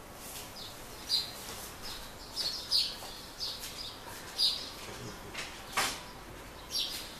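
Short high chirps of small birds, repeating about once a second, with a sharp click about six seconds in.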